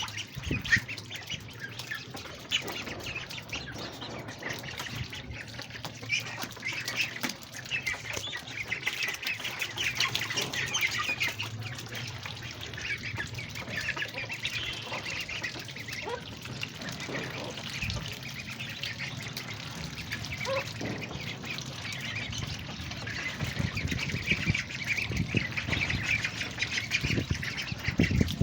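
Ducklings peeping, many short high calls overlapping without pause, over a steady hiss of rain.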